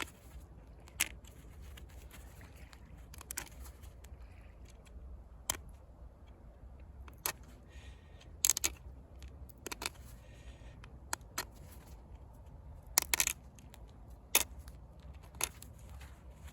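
Pressure flaking of a chert flake with a moose-antler tool: sharp, irregular clicks as small retouch flakes snap off the edge, about a dozen in all, some in quick pairs, with light scraping of antler on stone between them.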